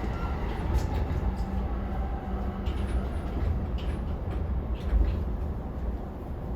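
Interior noise of a JR E233-1000 series commuter train car after an emergency brake application: a steady low rumble with scattered clicks and knocks, the loudest knock about five seconds in.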